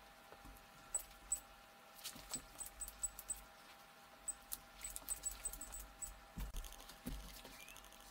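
Faint, scattered small clicks and taps of ceramic wall tiles being handled and pressed into place by hand.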